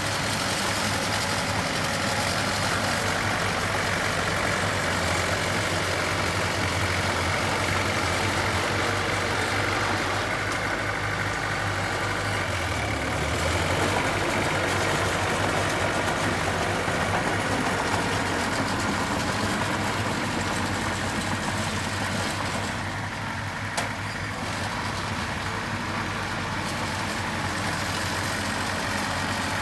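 Diesel engine of a construction machine running steadily, with one sharp click about three-quarters of the way through.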